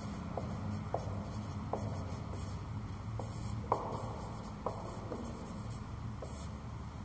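Marker writing on a whiteboard: a string of short, squeaky strokes, irregularly spaced, over a steady low hum.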